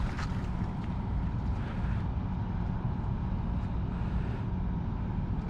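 Wind buffeting the camera microphone, a steady low rumble with a few faint clicks.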